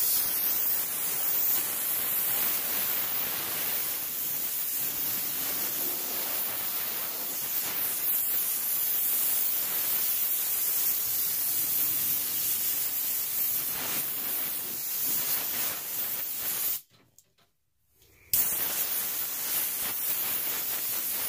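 Compressed-air blow gun hissing steadily as it blows sanding dust off a carved wooden sign. The hiss drops out to silence for about a second and a half near the end, then resumes.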